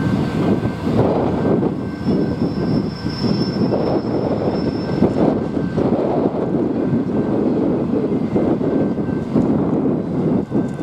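A train rolling past with a steady, heavy rumble, and a thin high squeal for a few seconds early in the passage.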